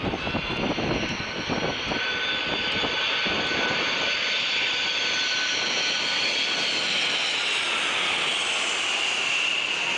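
Four-engine turbofan jet with gear down flying low directly overhead: a steady jet rumble with high engine whine tones that shift and drop in pitch as it passes.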